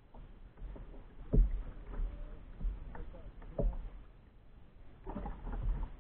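Small waves slapping against a plastic sea kayak's hull in irregular dull knocks, about one a second, the loudest about a second and a half in.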